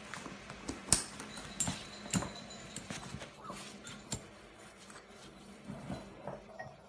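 A series of irregular knocks and clicks, the loudest about a second in, spaced unevenly and thinning out toward the end.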